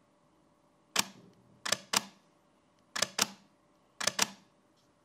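Canon EOS-1D X Mark III DSLR firing single frames in its Single Soft (quiet) drive mode: four shutter releases about a second apart, most heard as a quick double click of mirror and shutter.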